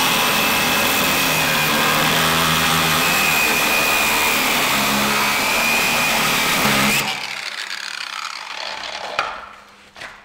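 Angle grinder cutting through a seized, rusted hinge bolt whose captive clip had spun: a loud, harsh cutting noise with a high steady whine. It stops abruptly about seven seconds in, followed by quieter handling noises.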